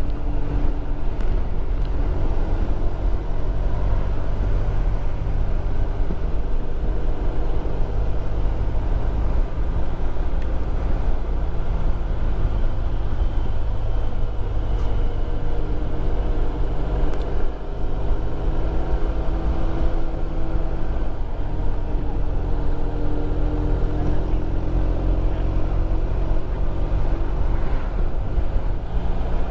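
Motorcycle engine running while riding, its pitch rising and falling several times with changes in speed, over a steady low rumble.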